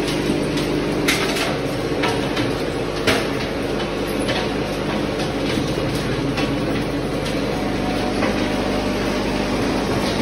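Plant machinery running steadily with a held low hum, as the sorting conveyor carries cracked engine pieces. A few sharp clinks of the broken metal parts are heard over it in the first few seconds.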